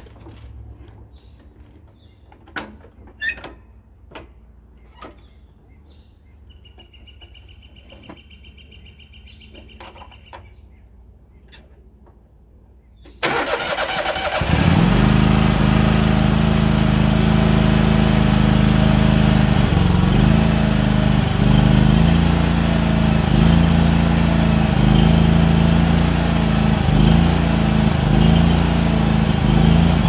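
Cub Cadet zero-turn mower's engine cranked by the starter and catching about 13 seconds in, then running steadily with small dips in speed. Before that, only a few light clicks.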